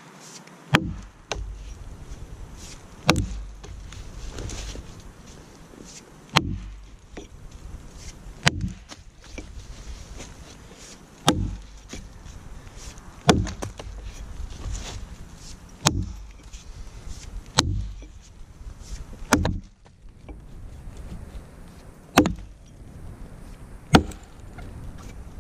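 Council Tool Boys Axe chopping into a downed log: about a dozen sharp strikes of the axe head biting into the wood, roughly one every two seconds.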